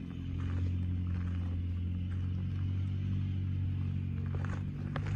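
International WorkStar 7300 truck's diesel engine idling with a steady low hum.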